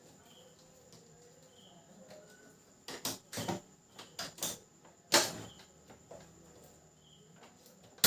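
Clicks, rattles and knocks of an Epson L380 printer's parts being handled as its cable is fitted and tucked into place. A quick cluster of clicks comes a few seconds in, then a louder knock, and a sharp click right at the end.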